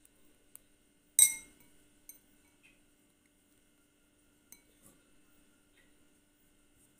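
A metal spoon strikes a plate with one sharp clink about a second in, ringing briefly, followed by a few faint taps and clicks.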